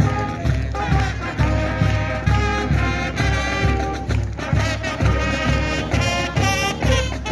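Marching band playing: trumpets and saxophones over a steady drum beat.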